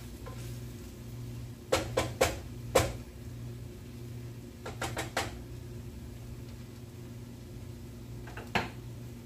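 A wooden spoon knocked against the rim of a steel cooking pot: four sharp knocks about two seconds in and three more about five seconds in, then a single knock near the end, over a steady low hum.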